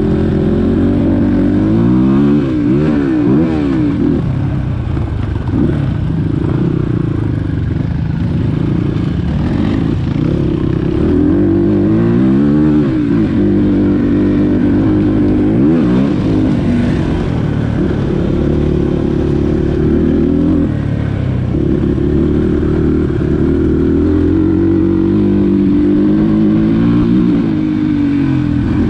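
Dirt bike engine running hard, its revs rising and falling repeatedly as the throttle is worked, with sharp rev swings about two seconds in, around twelve seconds in, and again near the end.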